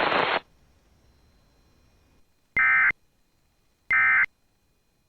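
Weather radio hiss cutting off just after the start, then three short identical bursts of warbling digital data tones, about a second apart: the EAS end-of-message (EOM) code closing a NOAA Weather Radio alert.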